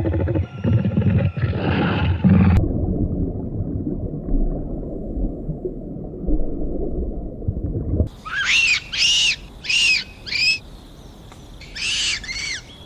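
Music and a low growling rumble cut off sharply about two and a half seconds in, followed by a low underwater rush. From about eight seconds in, a red colobus monkey gives a run of about seven short, high calls that rise and fall, in two groups.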